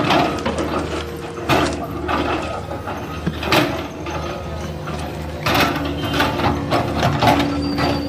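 Komatsu PC130 hydraulic excavator's diesel engine running steadily while the bucket digs, with clanks and scrapes from the bucket and its linkage about every one to two seconds.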